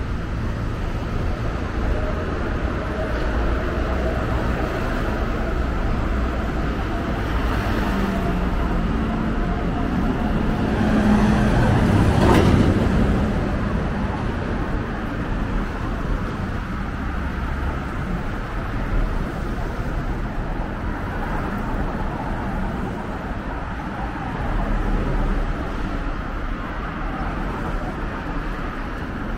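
Road traffic rumbling steadily, with one vehicle passing close and loudest about twelve seconds in.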